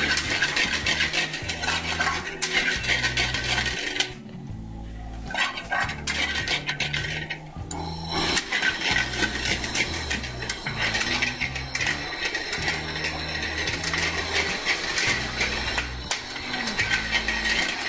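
Metal ladle clinking and scraping against a metal frying pan as spaghetti is stirred and tossed in a cream sauce, with many quick irregular clinks, briefly quieter about four seconds in.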